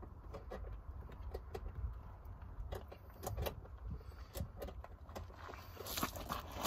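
Scattered light clicks and metal clinks of hand tools and parts as a bolt is worked at from under a car's dashboard, over a low steady rumble. A rustling scrape comes near the end.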